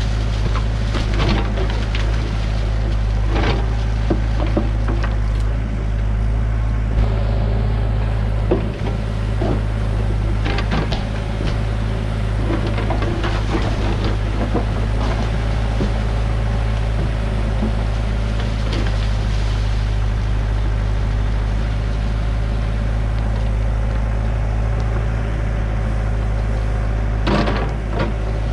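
Hyundai hydraulic excavator's diesel engine running steadily under load as the bucket digs into soil around a brick cistern. Scattered knocks and scrapes come from the bucket striking dirt and brick, with a cluster near the end as it dumps a load.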